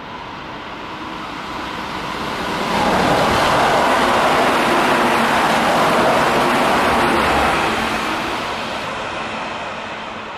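Keihan electric commuter train passing through at speed. Its rumble swells, stays loud for about five seconds, then fades away.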